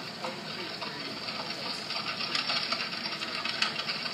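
Rapid, irregular clicking and clattering with a faint hiss beneath, a mechanical-sounding effect on the projection show's soundtrack.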